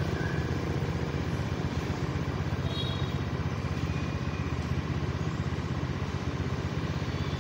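A motorbike engine idling steadily close by, a low, even pulsing.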